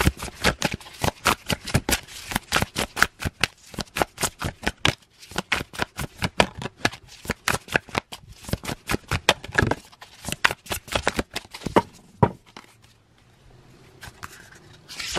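A deck of oracle cards being shuffled by hand, a quick run of crisp card slaps several a second, easing off for a couple of seconds about four-fifths through before starting again near the end.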